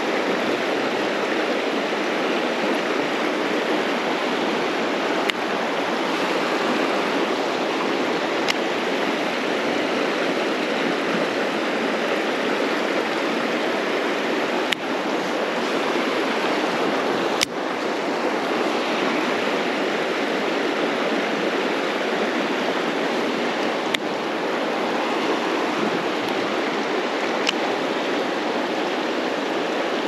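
Mountain stream rushing steadily over rocks, a constant water noise, with a handful of sharp clicks scattered through it.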